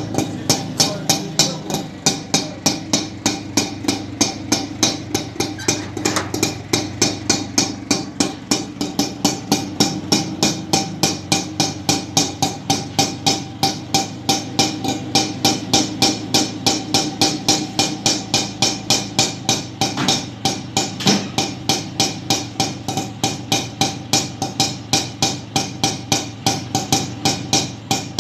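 Auto-rickshaw engine running at a slow, loping idle, its exhaust giving an even, sharp popping beat of about two and a half knocks a second over a steady hum.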